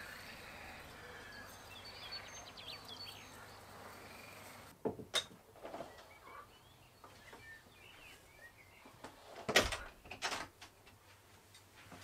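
Faint outdoor ambience with small bird chirps, then indoors a wooden glazed door being opened and shut, with two pairs of sharp knocks, about five seconds in and about ten seconds in.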